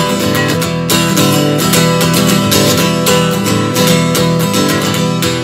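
Instrumental passage of a country-style song with steadily strummed acoustic guitar and no singing.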